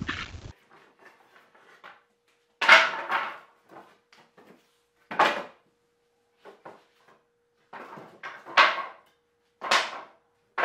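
Reclaimed pallet boards clattering as they are handled and dropped onto a stack: a series of sharp wooden knocks, about five loud ones a second or more apart with smaller ones between, ringing briefly in an enclosed garage.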